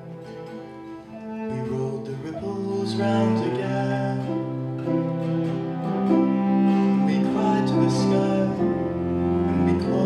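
Live folk chamber ensemble playing slow, sustained chords, with cello and violin bowing over acoustic guitar and keyboard; the music swells in loudness from about a second in.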